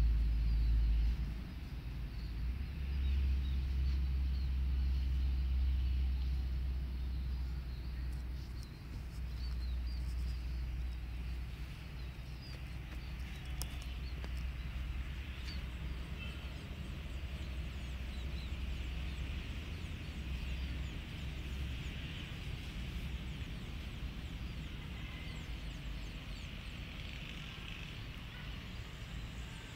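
Outdoor street ambience: a steady low rumble of road traffic with faint bird chirps.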